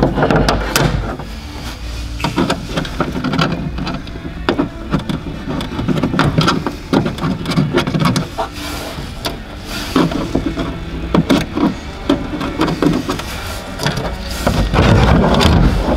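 Plastic trim-removal tools and hand tools clattering in a tool tray, with irregular clicks and knocks as the plastic boot trim and its clips are worked loose.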